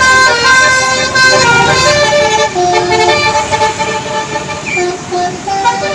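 Basuri 'telolet' musical bus horn playing a tune: several horn tones sound together as chords and change pitch every fraction of a second.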